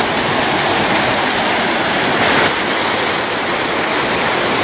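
Fast-flowing creek water rushing over rocks below a waterfall, a steady loud rush.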